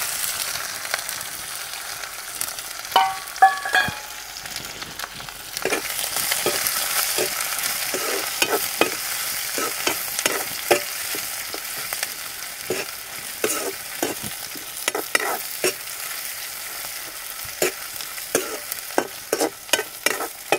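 Sliced onions frying in hot mustard oil in an aluminium kadai, a steady sizzle that grows louder a few seconds in, with a steel ladle scraping and knocking against the pan as they are stirred. A couple of brief ringing metal clinks come about three seconds in.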